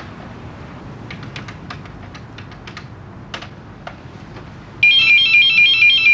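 A desk telephone in use: the handset is lifted and a quick series of light clicks follows as a number is keyed in. About five seconds in, a loud electronic phone ring starts, a fast warbling trill.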